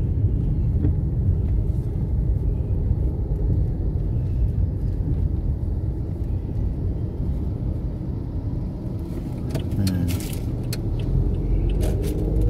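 Steady low rumble of a car's engine and tyres heard from inside the cabin while driving in city traffic, with a few brief rustles about ten seconds in.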